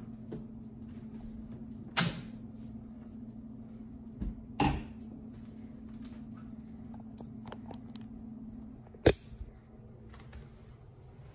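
Knocks and clatter as a large oven-style air fryer is handled and its hinged glass front door swung open: sharp knocks about two and four and a half seconds in, and one loud click about nine seconds in, over a steady low hum.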